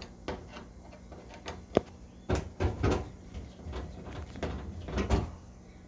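Irregular clicks and knocks of a screwdriver and hands working screws out of a washer-dryer's cabinet panel. Several clicks come with a dull thud of the panel.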